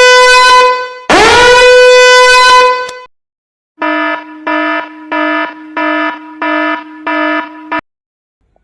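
Horn sound effects: two long, loud horn blasts, each sliding up in pitch as it starts and then holding steady. These are followed by a quieter run of about seven short, evenly spaced honks at a lower pitch.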